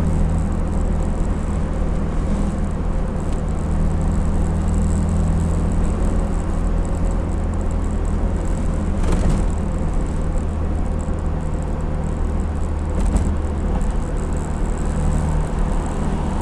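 IZh-2717 'pirozhok' van driving, heard from the cab: steady engine and road noise with a low hum. A short knock comes about 9 seconds in and another about 13 seconds in, like the rattle the owner hears from the van's body.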